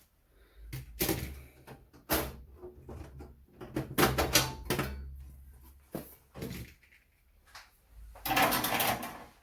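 Knocks, clicks and clatter of the Compaq Portable's screws and metal cover being handled during disassembly, with a longer scraping noise near the end.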